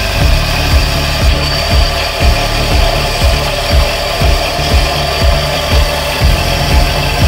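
Benchtop belt sander running with the steel head of a hatchet pressed flat against the moving abrasive belt, grinding the metal with a steady rasp.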